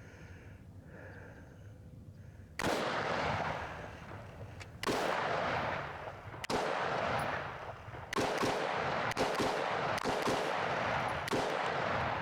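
Rifle shots from a Windham Weaponry AR-15 A2 fired slowly in semi-auto: about seven shots, a second or two apart, each trailing off over about a second. The first comes about two and a half seconds in.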